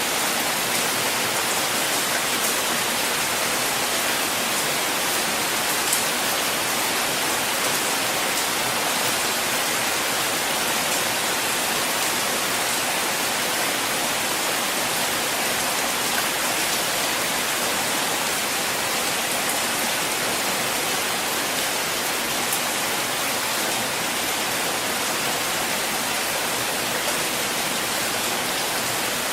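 Steady rain falling: a dense, even hiss with a few sharper drop ticks now and then.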